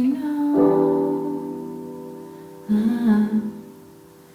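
Slow solo piano-and-voice song: a held sung word, then a piano chord struck about half a second in that rings and slowly fades, with a short sung phrase in the middle.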